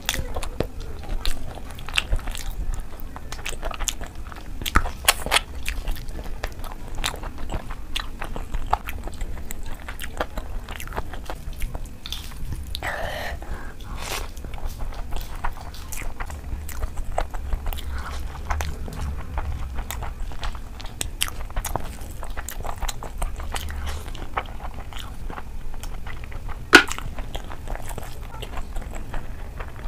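Close-miked eating: chewing of rice and curry eaten by hand and crisp crunching of papad (poppadom), with many small mouth clicks and one sharp crack a few seconds before the end.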